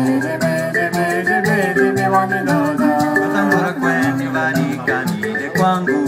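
African-style acoustic music: mbira in calabash resonators playing interlocking notes over the steady rattle of hosho gourd shakers, with a woman's voice singing.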